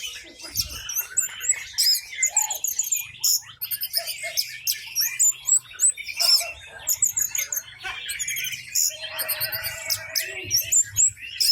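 Orange-headed thrush singing loudly: a fast, varied stream of high chirps, trills and whistled phrases, broken by short pauses.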